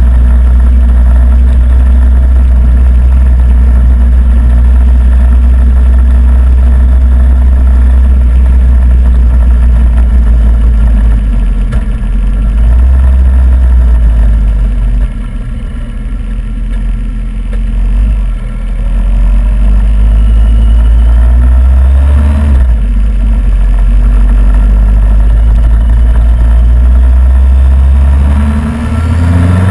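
Motorcycle on the move, engine running under a heavy, deep rumble of wind on the bike-mounted camera's microphone. The sound eases off for a few seconds about halfway through and again briefly near the end, then builds back up.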